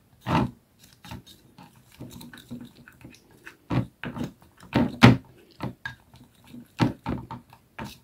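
A utensil stirring and scraping a sticky aloe vera gel mixture in a small glass bowl, with irregular knocks and scrapes against the glass.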